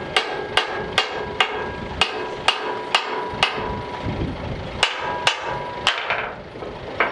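Hand hammer striking a steel boat wing and its mounting bracket in a steady run of blows, about two a second, each with a short metallic ring. The blows pause briefly partway through, then come three more before the hammer stops.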